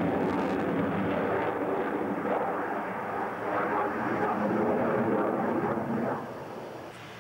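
Jet fighter's engines during a display pass, a loud steady rushing noise that falls away noticeably about six seconds in.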